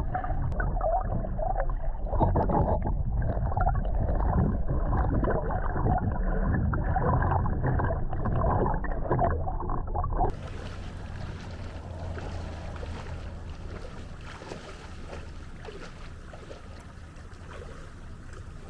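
Muffled water sloshing and gurgling picked up by an underwater camera, with irregular surges, for about ten seconds; then a sudden cut to a quieter, steady wash of water and wind.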